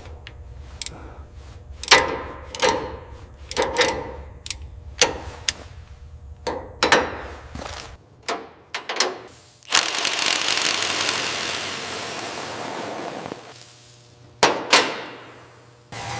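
Workshop tool noise: a series of sharp knocks and clicks, then a steady hiss lasting about three and a half seconds, then two more knocks.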